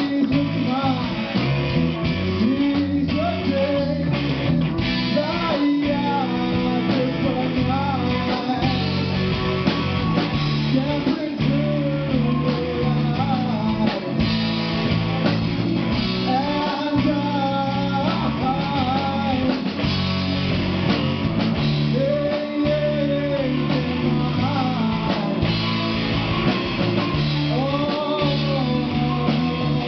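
Rock band playing live: electric guitars and a drum kit with a singer carrying the melody.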